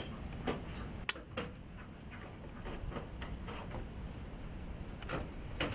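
A few light clicks and knocks of handling, one sharper click about a second in, over faint background noise.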